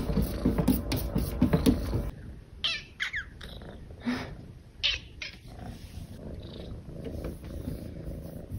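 A cat purring close up for about two seconds, then giving several short meows between about two and a half and five and a half seconds in, with softer purring after.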